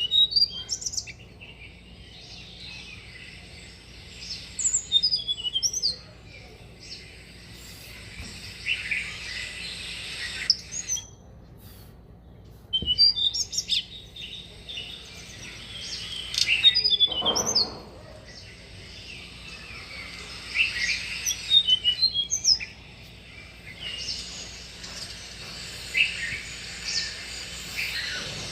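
Tickell's blue flycatcher singing: bouts of high, sweet twittering phrases, each a few seconds long, repeated with short pauses between them.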